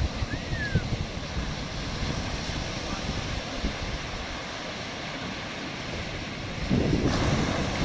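Ocean surf washing onto the beach, with wind rumbling on the microphone. The rumble grows louder near the end.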